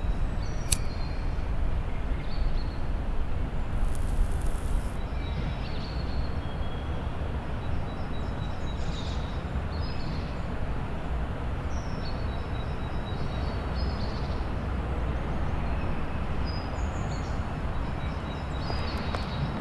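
Outdoor city-park ambience: a steady low rumble of distant traffic, with small birds chirping now and then.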